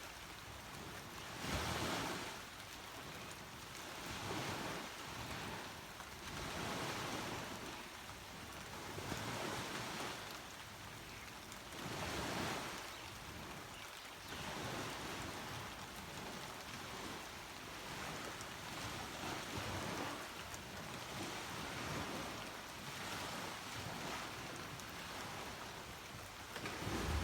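Sea waves breaking and washing onto a beach, the surf swelling and falling every few seconds.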